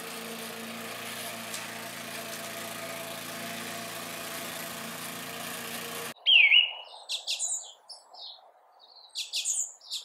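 A lawn mower engine running steadily, cutting off abruptly about six seconds in. Birds then sing in short chirps, the loudest a sharp falling call just after the mower stops.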